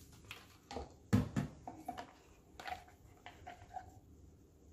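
Plastic pouring pitchers and a wooden stir stick handled over a countertop: a few sharp knocks about a second in, followed by faint short squeaks, as melted soap base is poured into a silicone mold.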